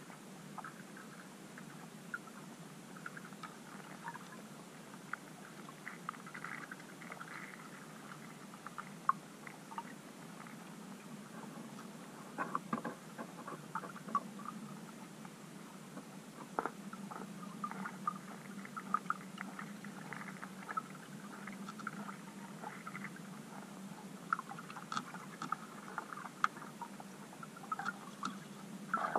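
Underwater ambience picked up by a submerged camera: patches of faint crackling and scattered small clicks over a low steady hum, with a few sharper ticks about halfway through.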